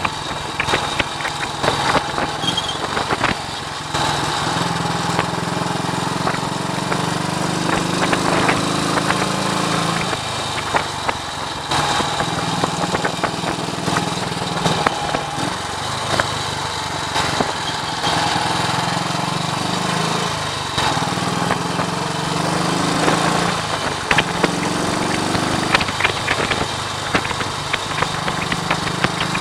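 1939 AJS Model 22 250 cc single-cylinder motorcycle engine running on the road, its pitch rising and then dropping several times as it pulls through the gears. Wind buffeting crackles on the microphone throughout.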